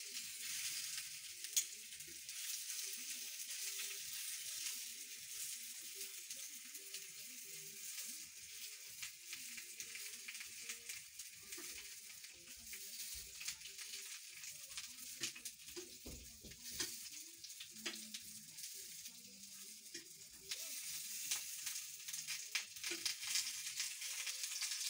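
Smokies and sausages sizzling as they fry in hot oil in a frying pan, a steady hiss with many small crackles. Metal tongs click against the pan now and then as the sausages are turned, one click louder about a second and a half in.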